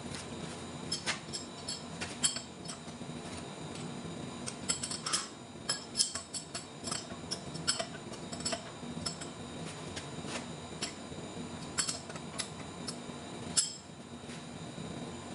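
Irregular sharp metallic clinks and taps of steel on steel as a large flange is clamped and set up in a big lathe's jaw chuck by hand, with the loudest clink near the end. A steady workshop hum runs underneath.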